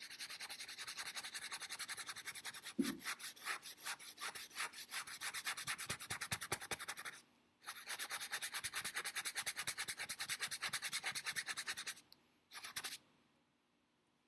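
A paintbrush scrubbing thinned burnt-umber oil paint into canvas with quick back-and-forth strokes, several a second, darkening the underpainting. The strokes run in two long spells with a short pause about seven seconds in, a brief final burst near the end, then stop.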